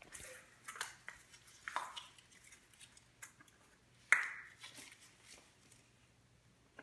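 Light clicks and clatter of hollow plastic Easter eggs and small plastic toys being handled and set down on a tile floor, with one sharper knock about four seconds in.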